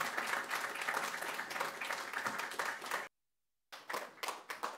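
Audience applauding, a dense patter of many hands clapping. About three seconds in the sound cuts out completely for about half a second, then the clapping returns, thinner, and dies away.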